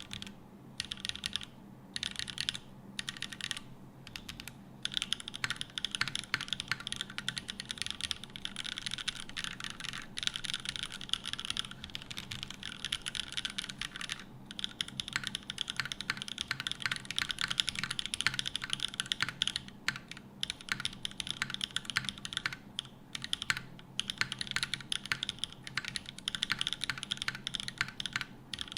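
Keystrokes on a Shureku60 gasket-mount 60% keyboard with Gateron Smoothies linear switches on a polycarbonate plate and GMK keycaps: fast runs of key presses broken by short pauses.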